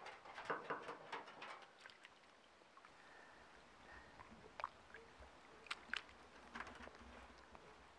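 Faint splashing and dripping of shallow water as a carp is handled in a landing net and lowered back into the lake for release. A flurry of small splashes comes in the first two seconds, then scattered drips and splashes, with a couple of sharper ones a little before six seconds.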